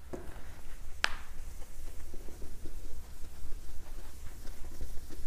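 Whiteboard eraser rubbing across a whiteboard as it is wiped clean, with one sharp click about a second in, over a steady low hum.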